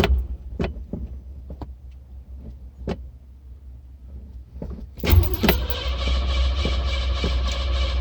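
Cadillac being cranked on its starter while it struggles to start, the tags calling it flooded. For about five seconds there is only a low rumble and a few scattered clicks, then the starter whirs in again and cranks steadily without the engine catching.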